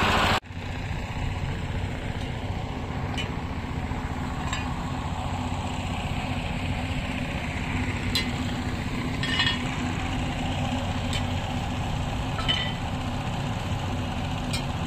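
An engine running steadily with a low hum. Short sharp clinks come every second or two.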